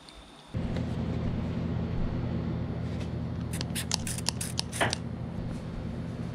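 A run of short, sharp strokes in the middle as a rain-repellent coating is worked onto a motorcycle helmet's clear visor, over a steady low hum that starts suddenly about half a second in.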